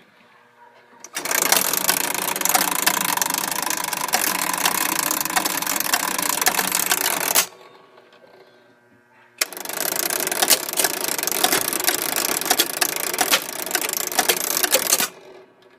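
Electromechanical pinball machine's cam motor and switches running in two stretches of about six seconds each, a dense rattle full of rapid clicks that starts and stops abruptly. The cams are turning far too slowly, from bad cam gears or shaft.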